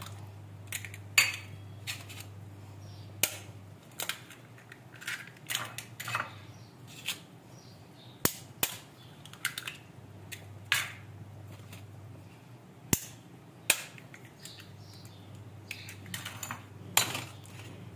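Raw eggs being cracked one after another with a metal spoon over a ceramic bowl: sharp taps and cracks of shell scattered irregularly throughout, over a low steady hum.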